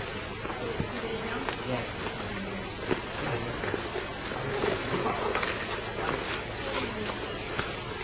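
Insects calling in a steady, unbroken high-pitched drone, with a few faint clicks scattered through it.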